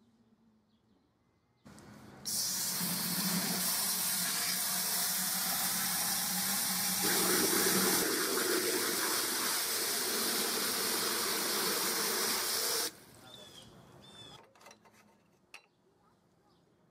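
Garden hose spray nozzle jetting water into the open cooling-water hopper of a 1915 Fairbanks-Morse Model Z engine: a loud, steady hiss and splash for about eleven seconds that cuts off sharply when the nozzle is shut. A few light clicks and knocks follow near the end.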